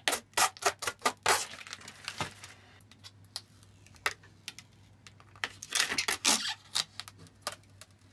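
Protective plastic film being peeled off a Perspex acrylic sheet: a quick run of crackles over the first second or so, then a longer ripping peel, and another stretch of peeling about six seconds in.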